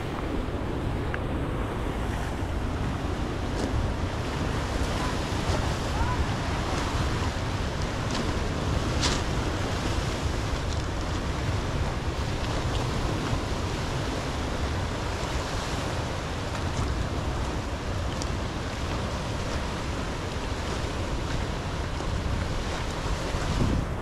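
Ocean surf crashing and washing over black lava rocks in a steady, continuous churn, with wind buffeting the microphone and adding a low rumble.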